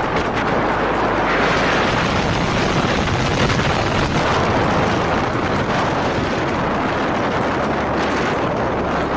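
Strong sandstorm wind buffeting the microphone: a loud, steady rushing noise with no let-up.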